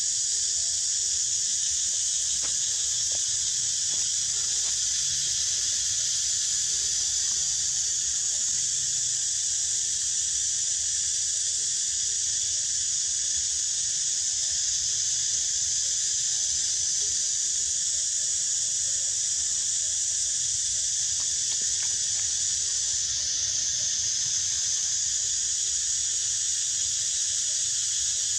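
Steady, high-pitched drone of an insect chorus, continuous and even throughout with no breaks.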